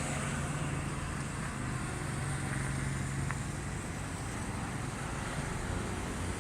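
An engine running steadily at a low hum, over a haze of traffic noise, with one short tick about three seconds in.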